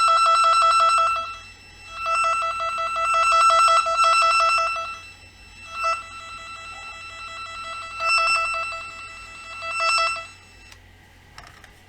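NF-388 cable tester's tone tester in scan mode, sounding its obnoxious tracing tone: a high, fast-pulsing electronic tone that swells and fades several times, then stops near the end.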